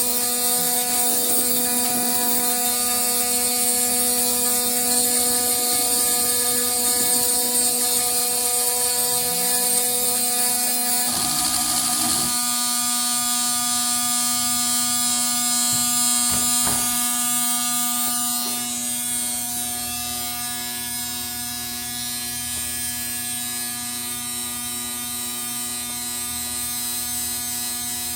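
Stepper motors of a homemade Arduino-driven CNC plotter running, a steady electric whine of several held tones over a hiss. The set of tones changes about twelve seconds in, and the whine drops a little in level soon after.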